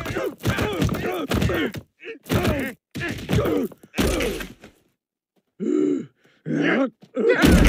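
Two cartoon men crying out and groaning in pain, each cry starting with a thud as they bounce down rocks, about seven in quick succession. After a short silence come two more drawn-out groans, then a loud hit near the end.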